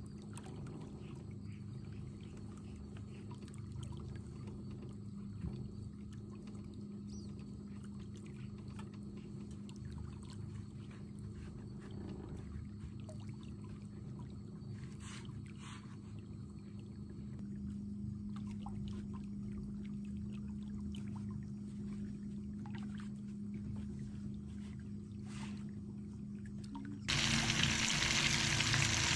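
A steady low hum with a few faint ticks and scrapes while fish pieces are pressed into flour. Near the end, loud sizzling starts suddenly: fish frying in a pot of hot oil.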